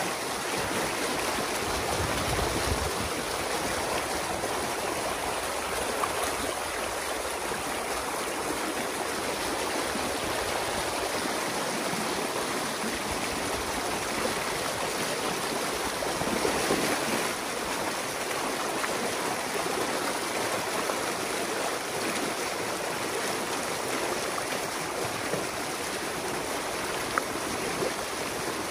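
Water rushing steadily through a breach cut in a beaver dam, as the flooded pond drains through the gap.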